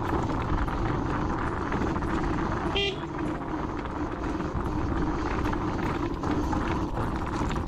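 Dualtron Thunder 2 electric scooter riding along at speed: wind rushing over the microphone with a steady hum under it. A brief pitched toot comes about three seconds in.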